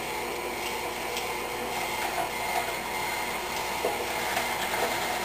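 Stand mixer motor running steadily, driving its food-grinder attachment as bell pepper is pushed down into the hopper and ground, with a few faint knocks.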